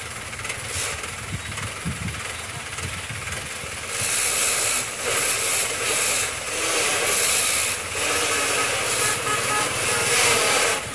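Heavy machinery running with a steady hiss that gets louder about four seconds in and then swells and dips.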